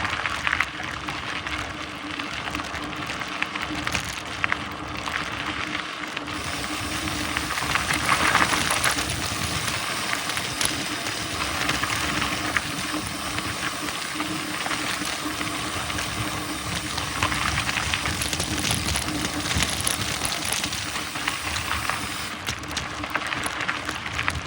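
Mountain bike being pedalled along a dirt trail: steady tyre and drivetrain noise with scattered small clicks and knocks, louder for a stretch around eight seconds in.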